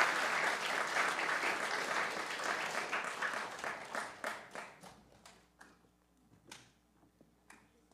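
Audience applauding, the clapping dying away over the first few seconds and thinning to a few scattered single claps near the end.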